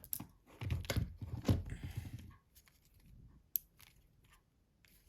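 Plastic housing of a Nokia C2-06 being pried apart by hand: crunching scrapes and sharp clicks over the first two seconds or so as the case clips give, then a single sharp click about three and a half seconds in.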